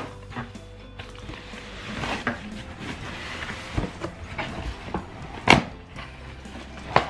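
Corrugated cardboard shipping box being handled: flaps pulled open and rustled, and the box shifted and lifted, with several hollow knocks, the sharpest about five and a half seconds in.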